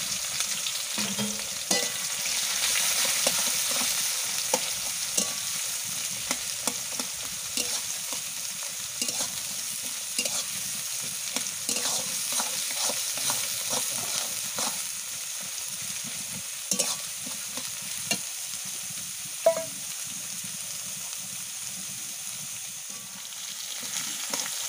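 Sliced onions sizzling in hot oil in a metal kadai, stirred with a metal spatula that scrapes and clicks against the pan. The frying hiss is steady, with many short clicks from the spatula and one louder knock toward the end.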